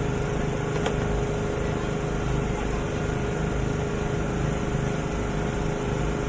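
A steady machine hum with a constant whine over a low rumble, and a single faint click about a second in.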